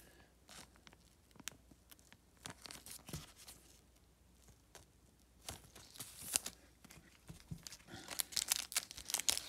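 Sparse soft rustles and taps of cards and a plastic sleeve being handled, then, from about six seconds in, the crinkling and tearing of a foil-wrapped trading-card pack being opened, growing denser near the end.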